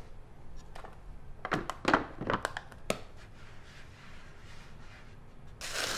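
A flour scoop being shaken and tapped over a cutting board, giving a handful of light knocks in the first half. Near the end comes a soft swish as a hand spreads the flour across the board.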